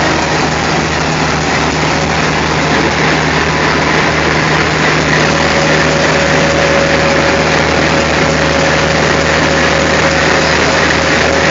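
ALCO diesel locomotive engine running steadily at low power as the locomotive creeps toward the coach to be coupled, with a faint steady whine joining about halfway through.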